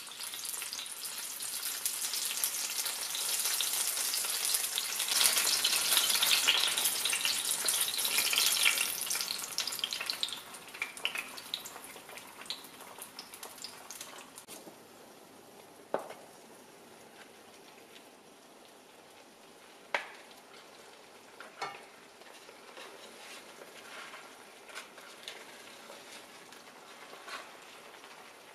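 Tomato slices sizzling in hot oil in a nonstick frying pan. The sizzle is loud for about the first ten seconds, then dies down to a soft, steady sizzle as beaten egg cooks around them, with a few sharp clicks along the way.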